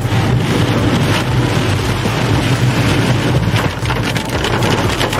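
Car driving in heavy rain, heard from inside the cabin: a steady low engine and road hum under a dense hiss of rain on the windscreen and wet tyres.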